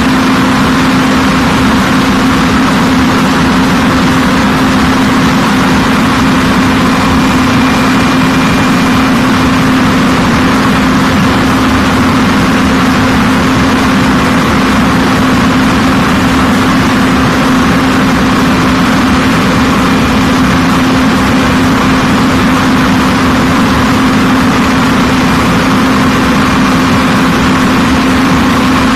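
Loud, steady machine drone with a constant low hum, like a motor or engine running without change.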